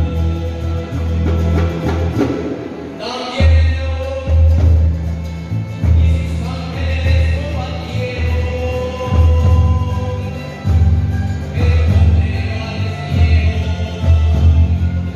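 Music: a song with singing over a strong, pulsing bass line.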